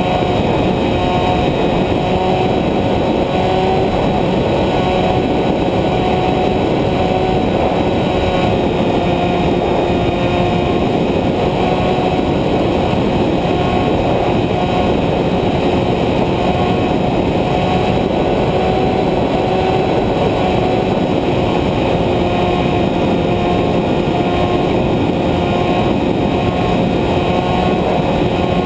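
Radio-controlled model airplane's motor and propeller running at a steady pitch in cruising flight, heard from a camera on the plane, with airflow rushing over the microphone.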